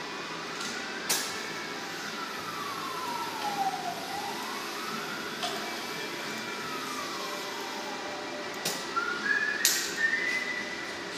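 A siren wailing, its pitch sliding slowly up and down in long sweeps of several seconds each, with a few sharp clicks.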